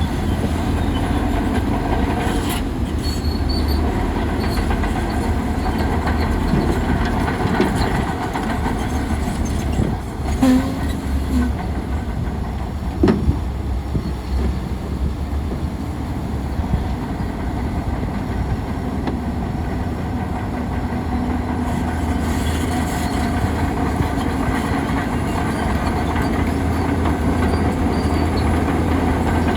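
Bulldozer running steadily with a low diesel rumble, its steel tracks clanking and squealing, with a brief squeal about ten seconds in and sharp metal knocks a few seconds later.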